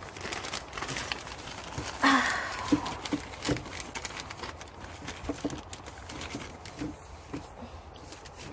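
Plastic greenhouse sheeting crinkling and rustling as it is gripped and pressed against the wooden frame by hand, with scattered light taps and knocks and a louder rustle about two seconds in.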